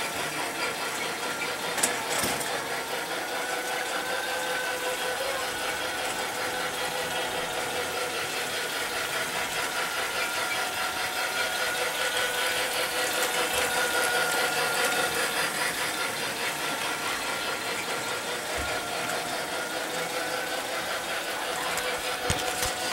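Electric toy train running around its track, its motor giving a steady whine that wavers slightly in pitch over a light rattle of wheels on the track. A sharp click about two seconds in.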